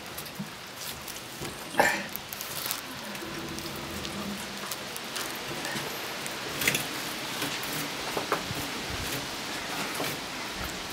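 A fillet knife cutting and scraping a small bass on a wooden cleaning board: scattered clicks and scrapes over a steady hiss, with a sharp knock about two seconds in.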